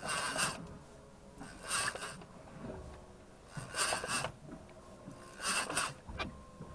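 Fishing reel being cranked in short rasping bursts, about one every two seconds, as the angler pumps a heavily bent rod to bring up a heavy fish.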